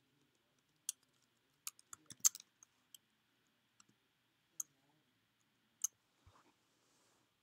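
Faint, sharp clicks of computer keyboard keys being typed, about ten strokes in all: a quick run of them about two seconds in, then single clicks spaced a second or so apart.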